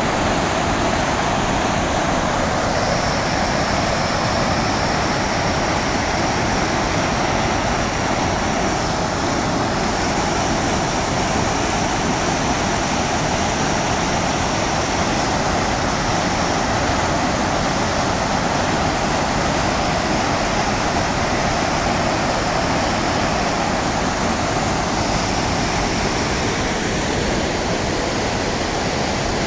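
Muddy floodwater pouring down a concrete weir face in a steady, loud, unbroken rush, the river swollen by heavy rain.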